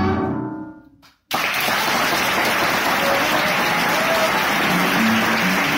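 Recorded tango orchestra music fades out over the first second; after a brief silence, audience applause starts suddenly and carries on steadily.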